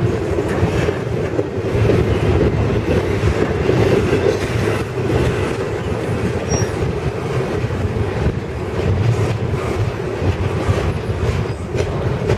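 Double-stack container well cars of a freight train rolling past: steady rumble of steel wheels on rail with irregular clacks over joints and between cars, and one short high wheel squeak a little past halfway.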